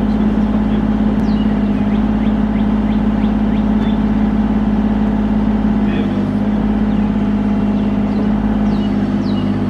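Bobcat E35 mini excavator's diesel engine running steadily under hydraulic work as the arm and bucket are moved. A higher tone joins the engine about six seconds in and again near the end.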